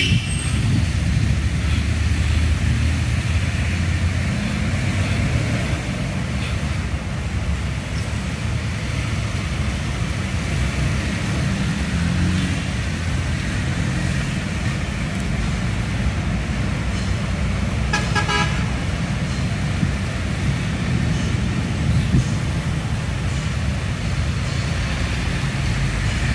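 Steady road traffic noise, with engines running at a low rumble. About eighteen seconds in, a vehicle horn sounds a few short toots.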